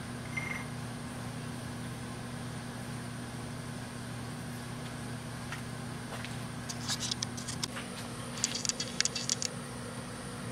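Steady low hum of shop machinery, with two quick runs of light metallic clicks and taps about seven and eight and a half seconds in, from a chuck key and steel workpiece being handled in a lathe's four-jaw chuck.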